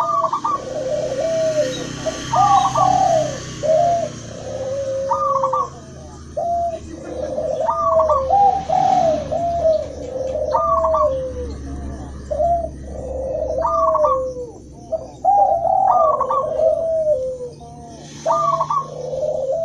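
Several doves cooing over one another in an unbroken run of short, repeated notes: a mix of zebra dove, spotted dove and ringneck dove calls.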